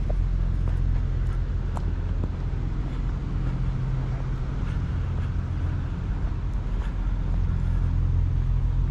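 Car driving, heard from inside the cabin: a steady low engine and road hum with a few faint clicks.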